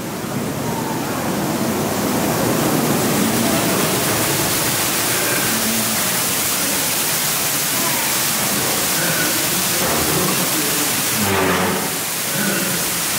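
Rushing water from an artificial waterfall cascading down cave rockwork, a steady loud hiss.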